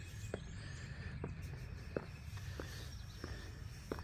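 Footsteps on the deck of an old railroad trestle, a short knock about every two-thirds of a second at an even walking pace, over a steady low rumble.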